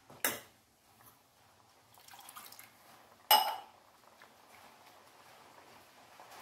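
Steel ladle knocking against a stainless steel pot twice, lightly about a third of a second in and louder about three seconds in with a brief metallic ring, with faint stirring of thick curry in between.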